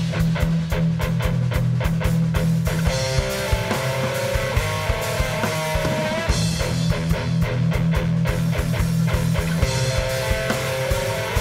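Electric guitar and drum kit playing instrumental music together: held low guitar notes and chords over busy drum and cymbal hits.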